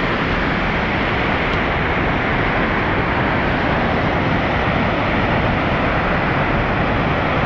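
Floodwater pouring over a dam's spillway gates and churning in the turbulent river below: a loud, steady roar of rushing water.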